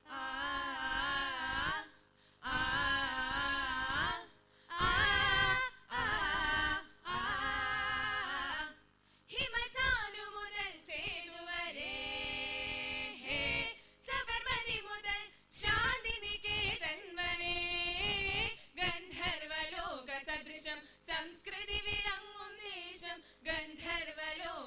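A girls' group singing a Malayalam patriotic song in unison into stage microphones. For the first nine seconds they hold long wavering notes in separate phrases with short breaks, then go into a quicker, continuous run of sung words.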